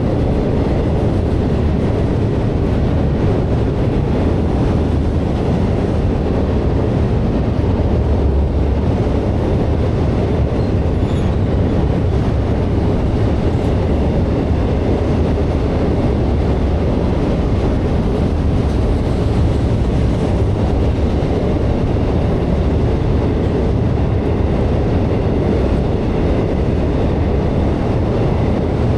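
Florida East Coast Railway intermodal freight train rolling steadily past, its container cars' wheels rumbling and clacking over the rails of the drawbridge in a continuous loud roar.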